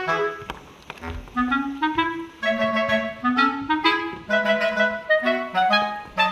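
Light background music: a melody of short, separate notes played on a wind instrument.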